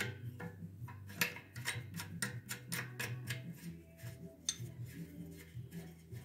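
Brass compression nut on the copper discharge line being threaded by hand onto the air compressor head's outlet fitting: a run of light metallic clicks and ticks, a few a second.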